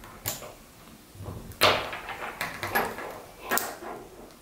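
Small die-cast metal armor pieces of a Myth Cloth action figure clicking and clacking as they are pressed onto the figure's leg by hand: a series of sharp clicks, the loudest about one and a half seconds in, with several more after it.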